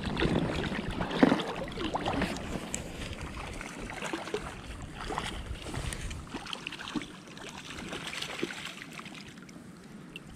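Water splashing and lapping around a belly boat (float tube), with small irregular splashes and knocks, and wind rumbling on the microphone that dies down after the first few seconds.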